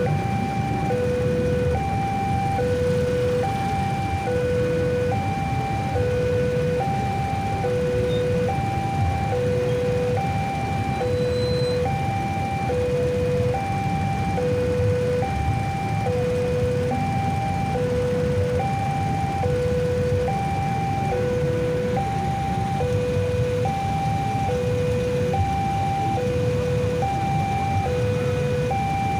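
Railway level-crossing warning alarm sounding: an electronic two-tone signal alternating low and high, about one low-high pair a second, over the low rumble of idling motorcycles.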